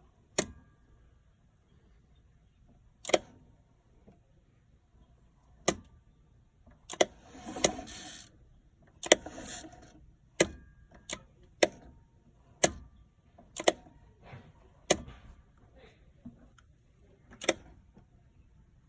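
A 1993 Club Car DS golf cart's starter circuit clicking sharply about a dozen times at uneven intervals. Twice, about a third and halfway in, a click is followed by about a second of noise as the starter-generator tries to turn the engine over. It is too weak to crank it, so the cart won't start.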